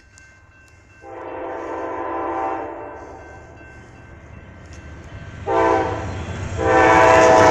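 Amtrak diesel locomotive air horn sounding its grade-crossing warning as the train nears the crossing: a long blast, a short blast about five and a half seconds in, then another long blast starting near the end. The horn plays several notes at once, a chord. The low rumble of the approaching train grows louder beneath it.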